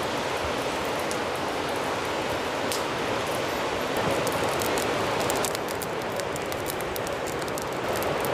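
Mountain river rapids: white water rushing, a steady noise. About five and a half seconds in it drops a little and gives way to many light, rapid ticks.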